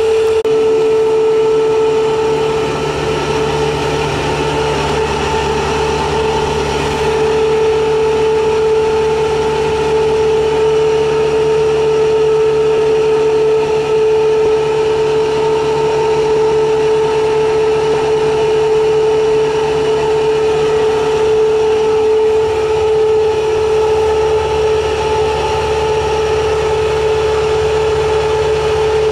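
Homemade electric outboard's roughly 2-horsepower electric motor running steadily under load, turning a propeller made for a 15-horsepower gas outboard: a loud, constant, even-pitched whine.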